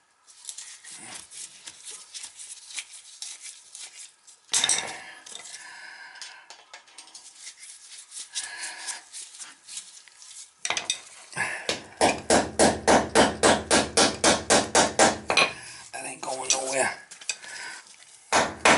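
Screwdriver driving a screw through a copper pipe clip into an anchor in the concrete floor, metal scraping and grinding as the screw turns, with a fast run of strokes, about six a second, for some three seconds around the middle. Near the end, a couple of hammer taps.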